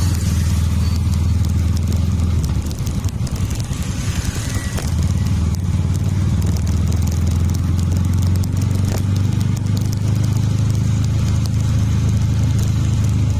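Steady low rumble of a moving vehicle's engine and road noise heard from inside the cabin, easing off for a couple of seconds about three seconds in.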